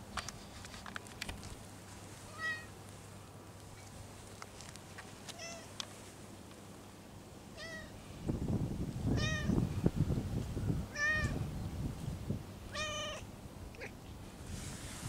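A cat giving about six short, quiet meows a couple of seconds apart as its lower back is patted. From about halfway through, low thuds from the hand patting its body sit under the meows and are the loudest part.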